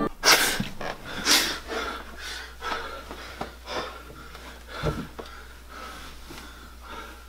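A young man gasping sharply for breath as he comes to, then panting more and more softly. A short dull thump about five seconds in.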